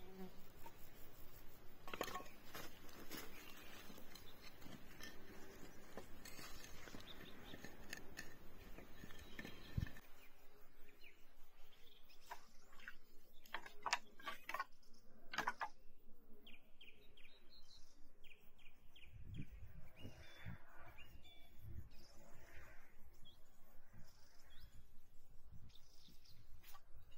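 Woodland birds chirping over a quiet outdoor background, with scattered sharp clicks and knocks. The background hiss drops abruptly about ten seconds in.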